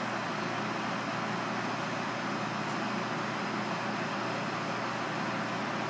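Steady background noise, an even hiss with a constant low hum. There is a faint tick about two and a half seconds in.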